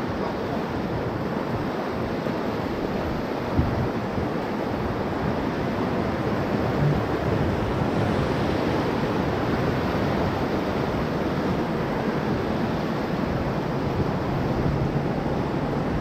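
Whitewater rapids rushing and churning around an inflatable raft, a steady wash of moving water. A brief knock sounds about three and a half seconds in.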